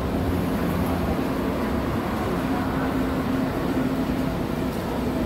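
Steady low rumble and hum of a subway station's ambience, even in level throughout.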